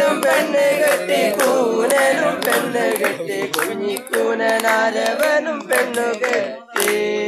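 Several voices singing together, a Malayalam folk song carried on between its verses, with wavering held notes.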